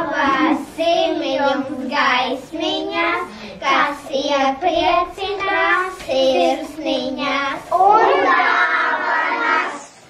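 A group of young children singing a song together in short, clear notes, growing louder and fuller for the last two seconds before breaking off.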